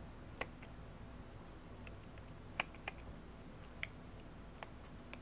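Faint, irregular small clicks of fingers handling the open back of a Pentax K1000 35mm SLR and the film leader in its gate, about six over five seconds, the sharpest about halfway through.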